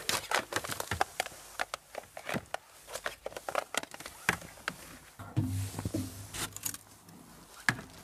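Tangled outdoor Christmas garland being untangled by hand: quick clicks and rustles of its plastic wire and bulbs. A low steady hum joins about five seconds in.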